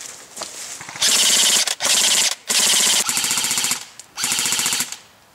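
Airsoft electric gun (AEG) firing four full-auto bursts, each lasting about half a second to a second, a rapid mechanical rattle with short pauses between bursts.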